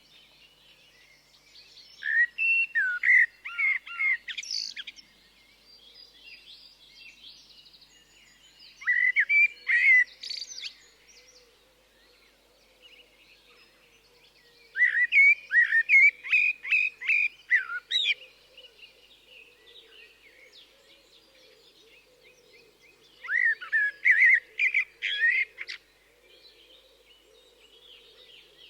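Common blackbird (Turdus merula) singing: four separate phrases, each a fluty, warbling run of gliding notes that ends in a higher, quicker twitter, with pauses of a few seconds between phrases. Fainter chirps from other birds sound in the gaps.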